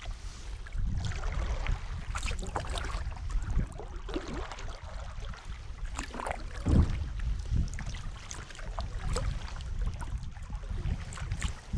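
Kayak paddling: the paddle blades dipping and water splashing and dripping in short, uneven strokes over a low wind rumble on the microphone, with a louder thump about seven seconds in.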